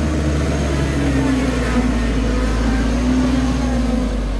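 Mitsubishi Canter light truck's diesel engine running hard and held at high revs under heavy load, its pitch wavering a little. The truck is bogged in deep mud and the wheels are spinning.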